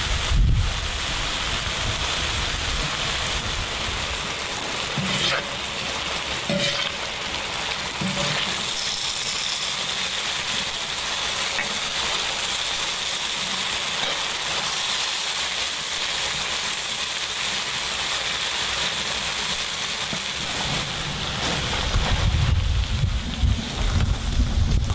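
Mushrooms sizzling steadily in a pan of mushroom cream sauce, stirred now and then with a wooden spatula that adds a few light clicks. A low rumble comes in near the end.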